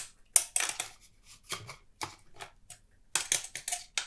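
Irregular metallic clicks and scrapes in short clusters as a hand tool turns the jacking screws of a clamp-type puller. The screws are slowly forcing an office chair's old pneumatic lift cylinder out of the seat mechanism's mounting hole.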